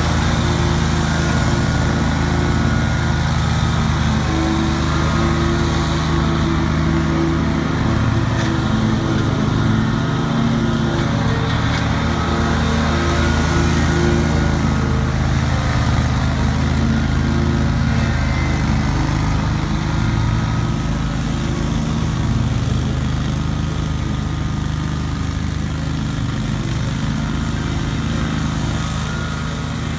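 Great Dane GDSS23KAE 52-inch stand-on mower running steadily at cutting speed, its engine under load through tall grass. The drone grows a little fainter over the last third as the mower moves away.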